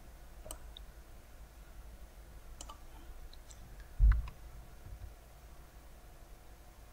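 Computer mouse clicks and scroll-wheel ticks, a few faint sharp clicks scattered through, with one louder dull thump about four seconds in.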